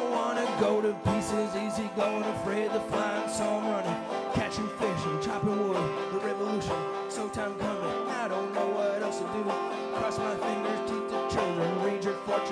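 Banjo and electric guitar playing an instrumental break of a live country-tinged song, with rapid plucked banjo notes under a lead line that bends and wavers in pitch.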